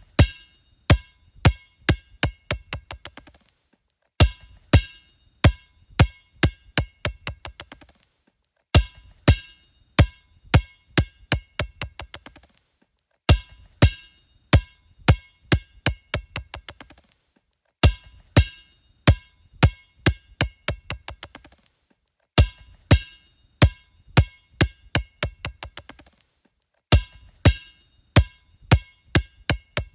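A basketball dropped onto a hard floor and left to bounce itself out, seven times over. Each drop starts with loud, ringing bounces that come faster and fainter until they run into a quick patter as the ball settles.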